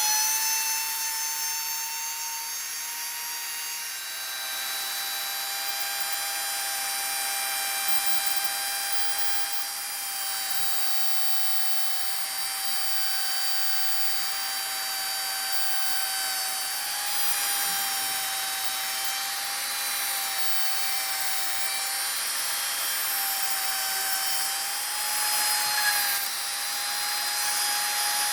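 Wood router spindle whining at a steady high pitch as its bit carves into wood, with a rough cutting hiss over the whine. The whine drops a little in pitch about four seconds in, then holds with small wobbles.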